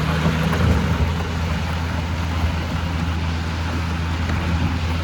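A car engine runs steadily at low speed over a constant rushing, scraping noise from a canoe being dragged across the asphalt behind it.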